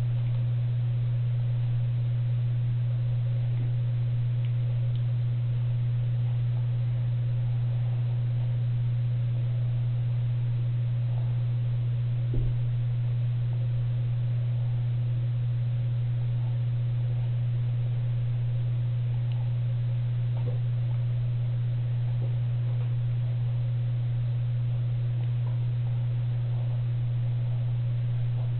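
A steady low hum that never changes, with one light knock about twelve seconds in.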